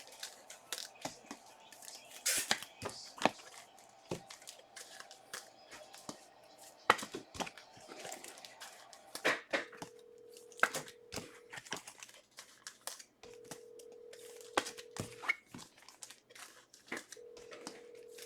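Trading cards and their plastic sleeves being handled and sorted on a table: scattered clicks, taps and rustles. A faint steady tone comes and goes three times in the second half, each about two seconds long.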